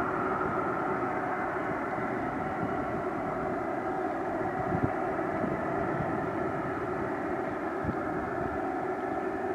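Airbus A330-200's twin turbofan engines running at low thrust while the airliner taxis: a steady jet whine with several held tones and no change in power. Two brief low thumps come about halfway through and near the end.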